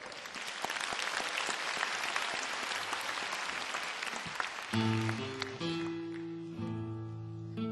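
Audience applauding for about four and a half seconds, then accompaniment music starts, led by a plucked string instrument such as a guitar, while the clapping fades out.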